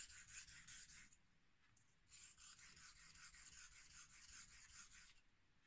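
Dovo straight razor blade being stroked back and forth on a 1000-grit whetstone: a quick run of short scraping strokes, a pause about a second in, then a longer run that stops near the end. This is bevel setting and edge refining on the 1000 stone.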